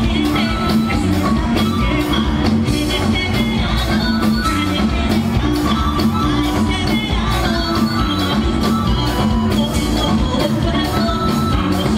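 Live cumbia band music with a male lead singer and a steady drum beat.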